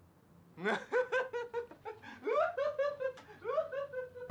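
A person laughing: a run of quick, high-pitched 'ha-ha' bursts, about five a second, starting about half a second in.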